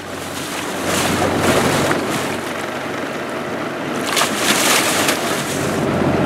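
Seawater washing and splashing against the side of a sport-fishing boat as a sailfish held by the bill thrashes at the hull, with wind on the microphone. The splashing surges a few times, loudest about four to five seconds in.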